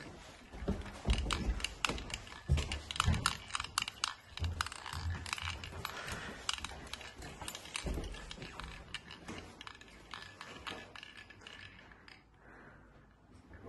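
Footsteps climbing carpeted stairs, with the phone camera rubbing and crackling in the hand: irregular dull thumps and rustling clicks. These ease off after about eight seconds into quieter room noise.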